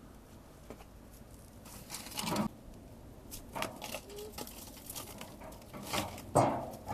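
Crumpled newspaper crinkling in several short bursts as it is pushed into a wood stove's firebox onto the metal grate, the loudest near the end.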